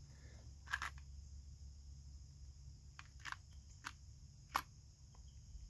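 About half a dozen faint, scattered light clicks and ticks from a small cardboard box of steel nutserts being handled and turned in the hand, the parts shifting inside. A low steady hum sits under them.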